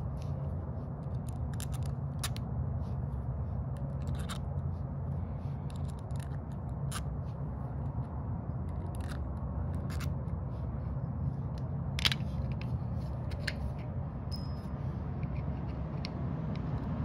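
Small, sharp clicks and taps of small carburetor parts being handled and fitted back together, scattered irregularly about a dozen times, over a steady low background hum.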